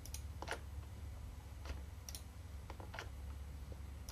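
Computer mouse clicking, about eight scattered clicks, over a faint steady low hum.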